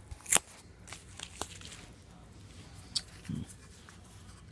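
A Zippo lighter being handled: one sharp click about a third of a second in, then a few fainter clicks and a short soft knock near the end.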